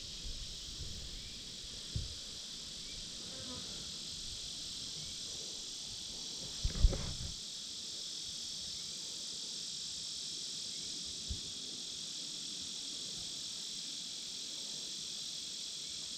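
A steady, high insect chorus buzzing throughout, with one dull thump about seven seconds in and a couple of fainter knocks.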